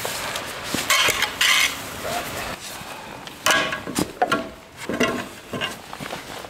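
Metal clatter and scraping in several short, irregular bursts as livestock feed is handled.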